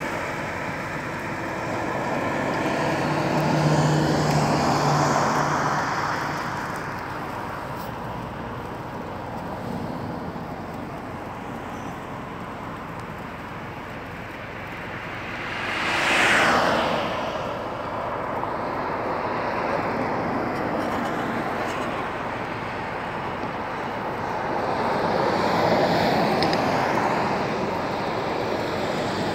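Road traffic noise: vehicles passing one after another in swells, the loudest pass about sixteen seconds in.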